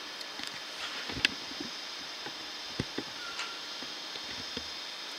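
Steady hiss with scattered sharp clicks and knocks, the loudest about a second in and a pair near the middle.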